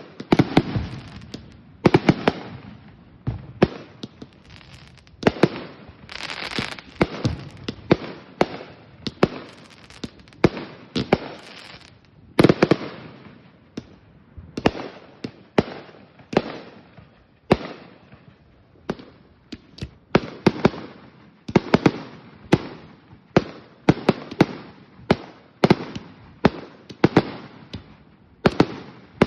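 Aerial firework shells and salutes going off one after another, sharp booming reports about one to three a second, some in quick clusters, with crackle between them.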